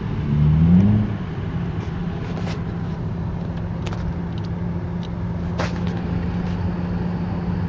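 Car running down the road, heard from inside the cabin: a steady engine and road drone. Just after the start there is a short surge that rises in pitch and loudness.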